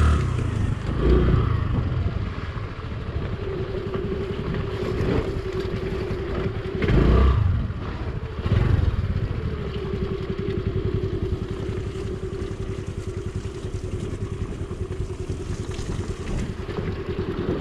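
Honda motorcycle engine running steadily while being ridden off-road, with loud low rumbling surges near the start and about seven seconds in.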